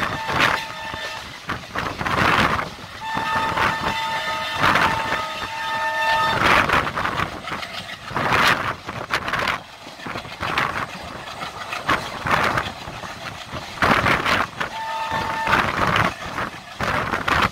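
Passenger train running at speed, heard from the open coach door: a continuous rush of wind and wheel noise with loud swelling gusts. The locomotive horn sounds one long steady blast about three seconds in, lasting some three seconds, and a short one near the end.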